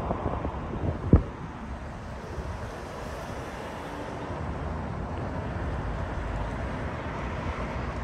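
Steady road and wind noise inside a moving car, with one sharp knock about a second in.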